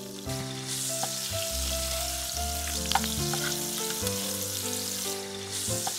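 Beef cubes and sauce sizzling in a hot nonstick frying pan as they are stirred with metal tongs. The sizzling picks up just after the start as the beef goes in, with a few sharp clicks of the tongs against the pan.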